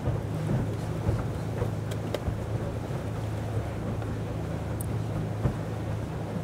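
Water taxi's engine running with a steady low drone while the boat cruises, with water rushing past the hull and wind on the microphone.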